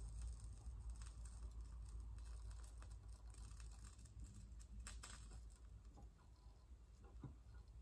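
Near silence, with faint scattered small clicks and taps as a soldering iron and small battery cells are handled.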